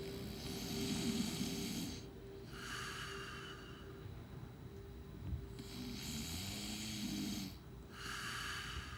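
A man snoring in his sleep: two full breaths about five and a half seconds apart, each a snore on the in-breath followed by a shorter hissing out-breath. A steady faint hum runs underneath.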